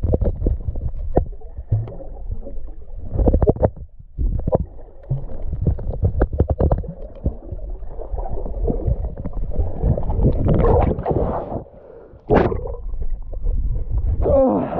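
River water heard underwater through a camera housing: muffled churning and bubbling, with scattered knocks and clicks as a swimmer moves among the stones.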